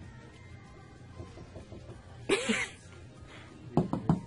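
A short cough about two and a half seconds in, then three quick soft knocks as a hand handles the posters on the wall near the end.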